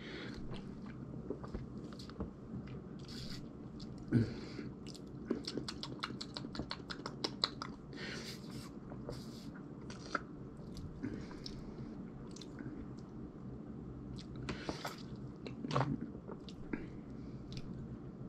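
A man tasting cranberry soda: quiet mouth sounds of sipping, swallowing and lip smacking, with scattered small clicks and a quick run of ticks between about five and seven seconds in.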